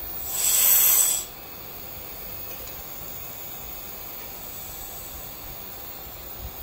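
A burst of compressed air hissing out for about a second near the start, then a steady quieter hiss: instrument air venting from a Fisher 4160 pneumatic pressure controller while its output is being adjusted.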